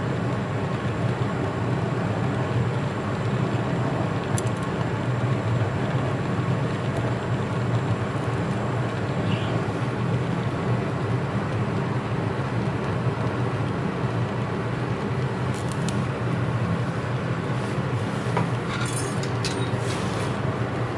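A steady low mechanical rumble at an even level, with a few faint clicks near the end.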